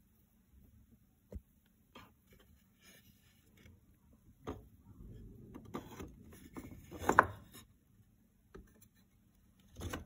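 Wooden offcut boards knocking and rubbing against each other as they are handled in a plastic basket: a few scattered light knocks, then a busier stretch of scraping and clatter with the loudest knock in the middle, and one more knock at the end.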